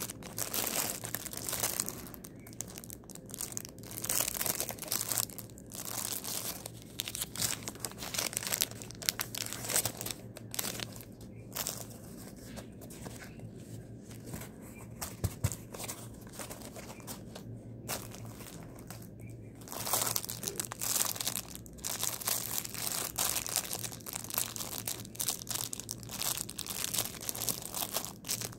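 Clear plastic packaging and a paper mailer crinkling and rustling as a parcel is handled and pulled open by hand, in irregular bursts with short pauses.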